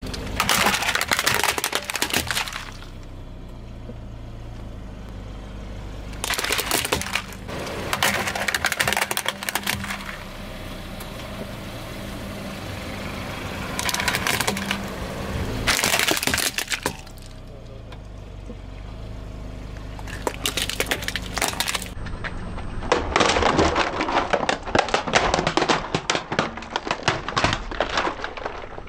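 Hard plastic toys and building bricks cracking and snapping as a car tyre rolls over them, in several bouts of dense crunching. A steady low hum runs underneath between the bouts.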